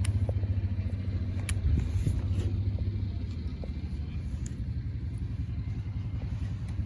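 An engine running nearby with a steady low rumble that swells slightly in the first couple of seconds.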